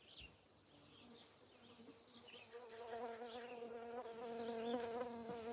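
A flying insect buzzing close to the microphone: a steady, slightly wavering drone that sets in about a second in and grows louder.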